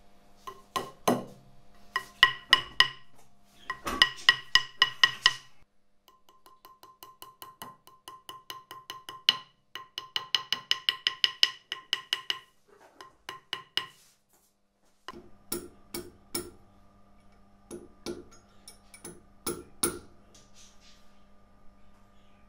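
Small metalworking hammer tapping on metal in quick, even runs of bright ringing taps, the sound of metalwork being set and shaped by hand. After a short pause about two-thirds through, sparser, duller taps over a steady low hum.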